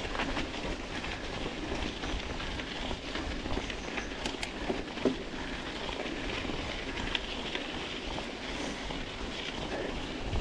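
Mountain bike riding over a rough trail: continuous tyre noise and the bike rattling, with scattered small knocks and one sharper knock about halfway.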